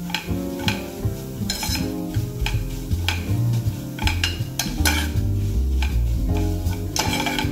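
Steel spoon stirring and scraping vermicelli as it roasts in ghee in a steel pan, with repeated metal-on-metal scrapes, roughly two a second, over a light sizzle.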